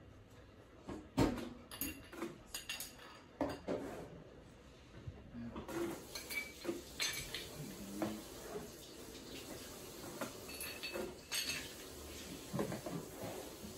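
Ice cubes set into a row of stemmed cocktail glasses with metal tongs from a metal ice bucket: irregular light clinks of ice on glass and metal, to chill the glasses. A few louder knocks stand out, one about a second in and another near the end.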